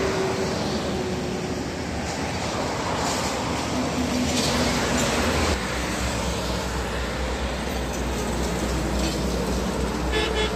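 Steady road traffic noise from a busy multi-lane highway: tyres and diesel engines of trucks and cars passing. A deep engine rumble grows louder from about halfway through as a heavy truck comes close.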